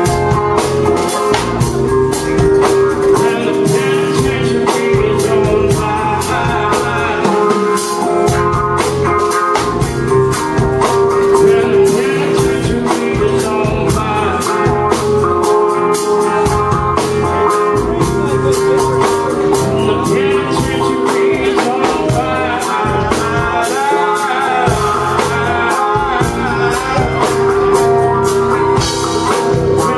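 A live full band playing: a male singer over electric guitar and a drum kit with a steady beat, heard from the audience.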